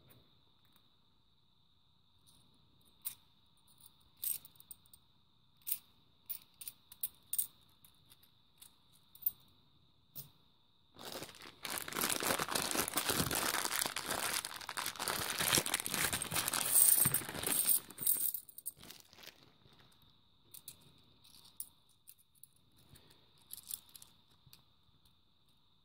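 Scattered clinks of 50p coins being handled, then about seven seconds of a plastic coin bag being torn open and crinkled, the loudest sound here, followed by more coins clicking together as a stack is handled.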